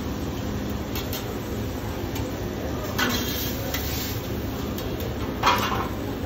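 Metal spatulas clacking and scraping against a flat-top griddle and pan while food is lifted and plated: a few sharp clacks, the loudest near the end, over steady kitchen background noise.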